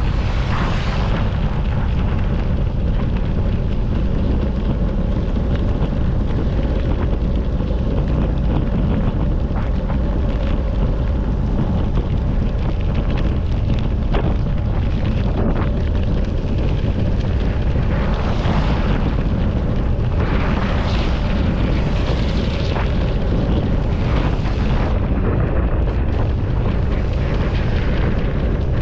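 Wind buffeting the microphone of a camera riding along on a bicycle at speed: a loud, steady low rumble with swells of rushing hiss about two-thirds of the way in.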